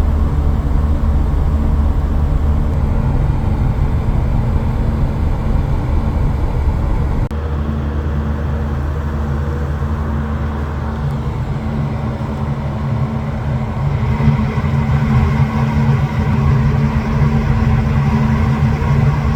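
Steady low machinery drone of a ship, with a constant hum under a noisy rush; the deepest part of the drone drops off suddenly about seven seconds in.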